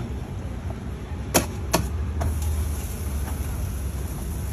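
Two sharp knocks about a second and a half in, a third of a second apart, over a steady low hum at a street-food griddle stall.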